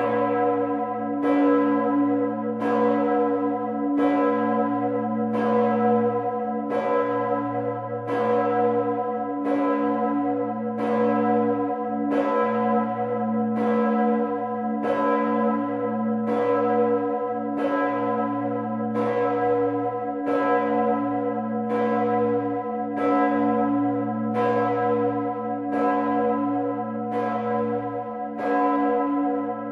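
The Gloriosa of Bremen Cathedral, a 3.7-tonne bronze church bell cast in 1433 with strike note B (h°), swung and ringing alone. Its clapper strikes evenly about every 1.4 seconds, with a long ring carrying over between strokes.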